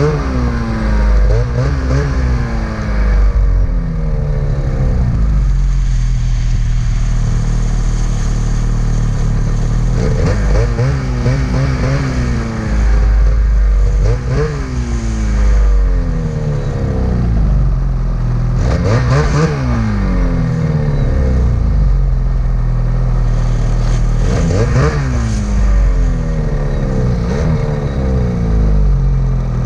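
Ski-Doo Summit 850 E-TEC two-stroke snowmobile engine revving hard in repeated surges and dropping back between them, working under load in deep powder. Heard close up from the sled itself.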